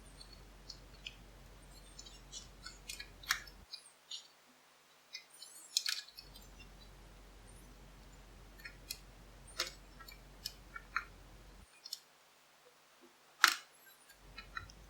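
Lock picks working inside an old four-lever padlock: scattered faint metallic clicks and scrapes, with a few sharper clicks.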